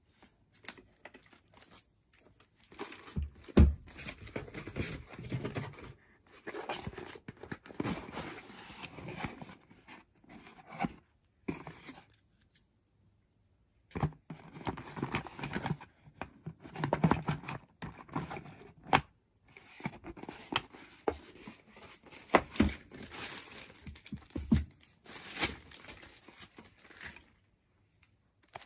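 Packaging being handled by hand: irregular crinkling and tearing with scattered knocks, one louder knock a few seconds in. It pauses about twelve seconds in and again near the twenty-second mark, then stops shortly before the end.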